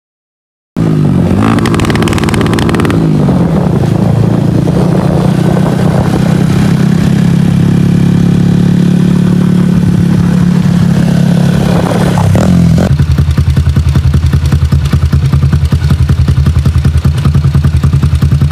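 Yamaha Jupiter MX 135 single-cylinder four-stroke motorcycle engine running on the move. Its note drops about two seconds in, then holds steady at cruising speed and rises briefly near 12 s. About 13 s in it changes abruptly to the engine idling close by, with quick, even exhaust pulses.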